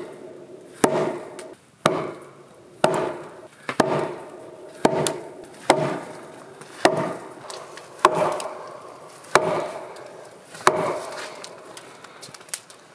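An axe striking a log post under a log floor beam, about ten heavy blows at roughly one a second, each with a short hollow wooden ring, knocking the post into place.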